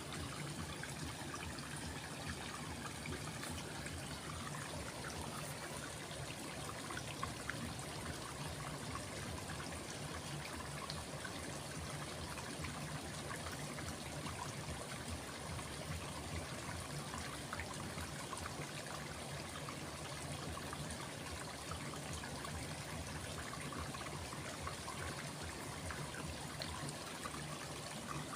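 Stream water trickling and flowing steadily.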